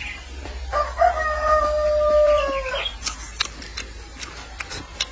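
A rooster crowing once, a call of about two seconds that holds its pitch and then drops at the end. A few short clicks follow it.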